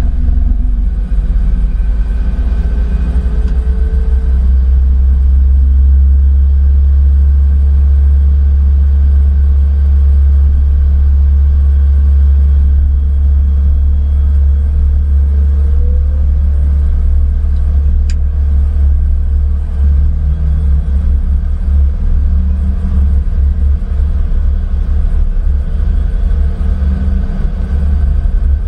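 Steady low rumble of cockpit noise in a Cessna Citation CJ4. Faint rising whines come a few seconds in and again about halfway, and a single short click follows a little after.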